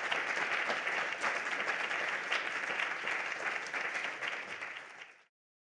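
Audience applauding, a dense patter of many hands clapping that fades out and stops about five seconds in.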